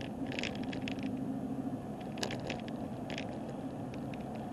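Car interior on a rough back road: steady engine and road rumble with a low hum, broken by bursts of quick clicking rattles, which the driver puts down to the camera.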